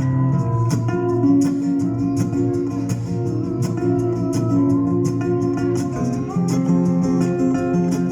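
Instrumental break of a song: a guitar strummed and picked over held low notes, with a change of chord about six seconds in and no singing.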